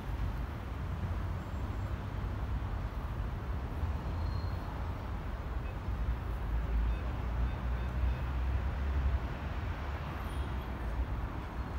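Steady low outdoor rumble with a light hiss above it.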